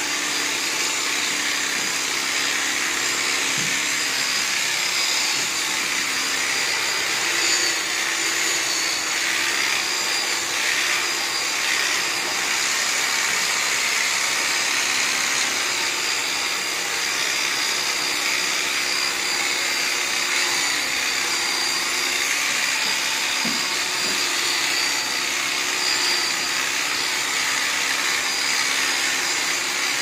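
Electric sheep-shearing clipper running steadily as it shears a sheep's wool, a constant motor whine with a high tone over it.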